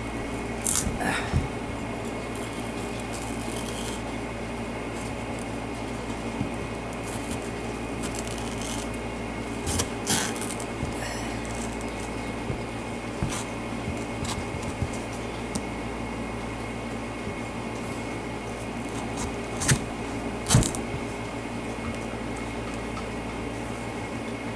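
Scattered knocks and clicks of a kitchen knife working into a hard spaghetti squash on a cutting board, the loudest pair about twenty seconds in, over a steady mechanical hum.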